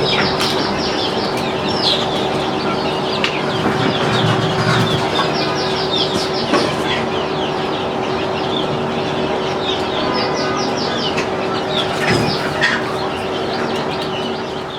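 A large flock of chickens clucking and calling together, many overlapping calls at once, over a steady machine hum. The sound fades out at the very end.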